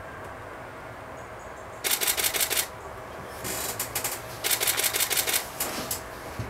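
Camera shutters firing in rapid bursts, about ten clicks a second: a burst about two seconds in, then a fainter one and a longer loud one in the second half.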